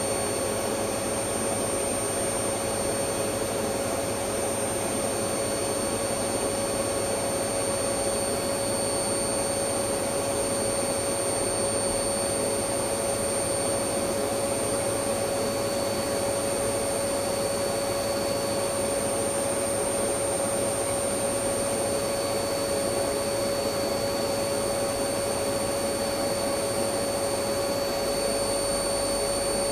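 Electric vacuum cleaner running steadily: an unchanging rush of air with a constant motor hum-whine, without any change in speed or load.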